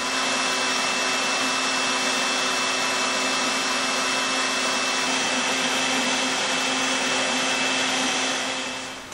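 DeWalt compact router on an X-Carve CNC running together with a shop vacuum pulling dust through the router's dust boot: a steady whirring hum with a constant high whine. It fades in at the start and fades out near the end.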